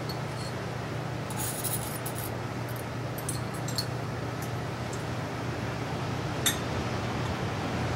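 Light clinks and rubs of laboratory glassware as a round-bottom flask is tipped with its neck in a glass beaker, with one sharp glass tap about six and a half seconds in. A steady low hum runs underneath.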